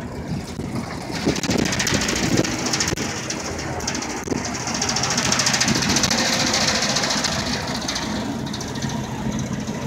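A boat's engine running with a steady low rumble. From about a second in, a helicopter overhead adds a rapid pulsing hiss, loudest around the middle, then easing off.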